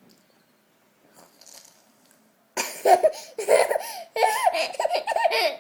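A toddler with the sniffles breaking into high-pitched laughter in repeated bursts, starting about halfway through after a near-quiet pause.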